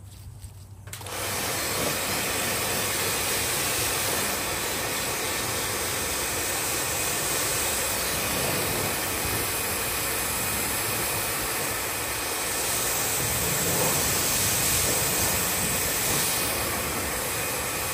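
Small electric Kärcher pressure washer running, its water jet hissing steadily as it sprays the aluminium hull of a dinghy to rinse off acid cleaner. The spray starts about a second in.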